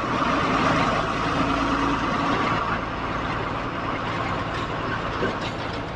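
Truck running along a highway at low speed, heard from inside its cab: a steady engine and road drone with a low hum, a little quieter after about two and a half seconds.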